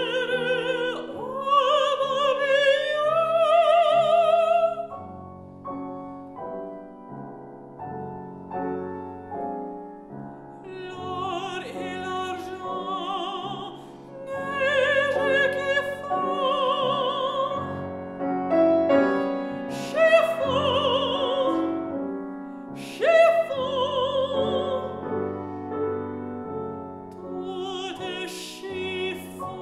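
A mezzo-soprano sings a French art song with vibrato, accompanied by a grand piano. About five seconds in, the voice stops and the piano plays alone for several seconds. The voice then comes back in shorter phrases over the piano.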